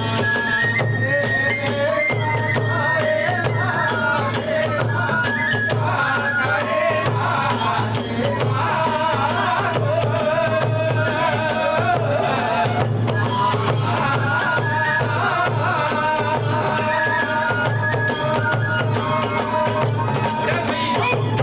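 Kagura festival music: a bamboo flute playing a stepping melody over rapid, continuous small hand-cymbal clashes and a steady drum beat.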